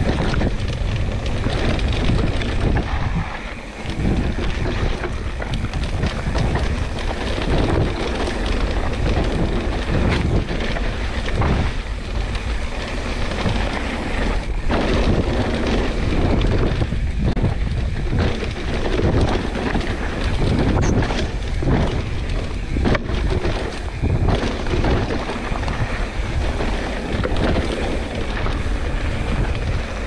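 Wind buffeting the camera microphone as a Pivot Switchblade full-suspension mountain bike rides fast down a dry dirt trail, with tyre noise and frequent short knocks and rattles from the bike over bumps.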